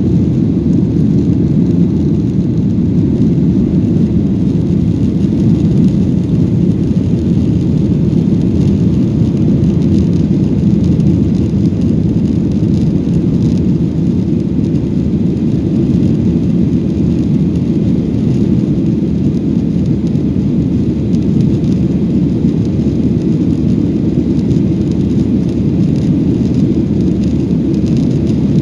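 Steady low rumble of a jet airliner's engines and rushing air during takeoff, even in level throughout.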